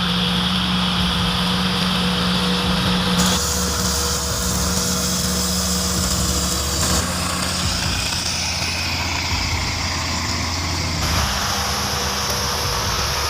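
Heavy machinery engines running steadily under load, the sound changing abruptly about three, seven and eleven seconds in as one clip cuts to the next.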